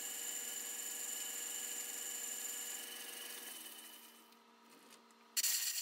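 Vintage South Bend lathe running with a steady whine while a boring bar bores out the sintered bronze bushing in an impact driver's gear-case snout. The sound fades away from about three seconds in, and a brief, louder noise comes near the end.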